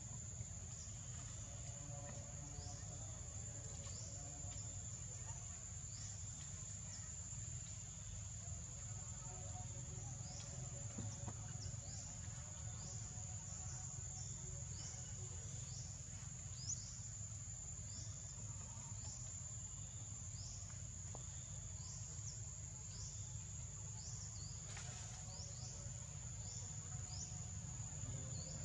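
Forest insects droning on one steady high note, with short high chirps repeating about once a second over it and a low rumble underneath.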